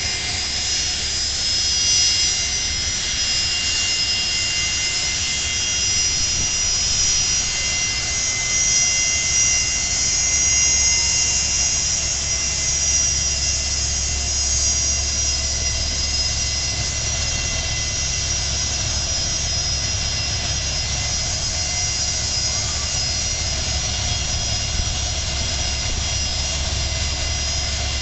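Jet airliner's turbofan engines running at low taxi power: a steady high whine over a low rumble, swelling a little around the middle.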